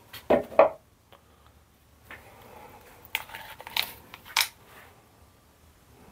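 Plastic mixing cups being handled and set down on a workbench: two knocks about half a second in, then a run of light clicks and clatter from about three to four and a half seconds in.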